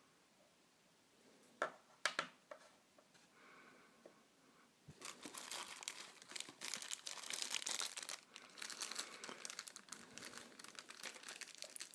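Plastic packaging crinkling and rustling as it is handled and opened, after a few sharp clicks and taps in the first seconds; the crinkling starts about five seconds in and goes on continuously.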